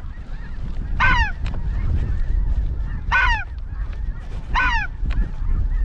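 Geese honking: three loud calls, each falling in pitch, about a second, three seconds and four and a half seconds in, over a steady low rumble of wind on the microphone.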